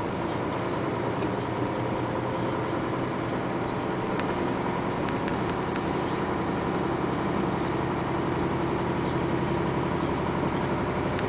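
Isuzu dump truck's diesel engine running steadily, heard from inside the cab as the truck rolls slowly over a gravel road. A few faint clicks and rattles sound over the engine.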